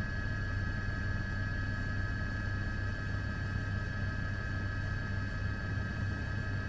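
Steady drone of an aircraft carrying the camera: a constant low hum with a steady higher whine over it, unchanging throughout.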